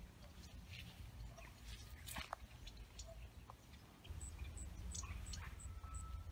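Faint outdoor garden ambience: a steady low rumble with scattered light ticks, and from about two-thirds of the way in a short high chirp repeating about three times a second.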